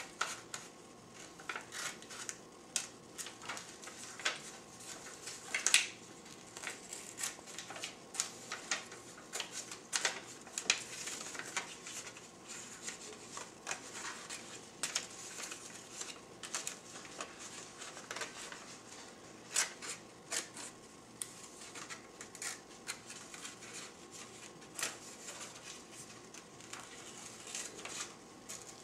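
Hand scissors snipping through printer paper, cutting out a shape: a long run of short, irregular snips with the paper rustling as it is turned.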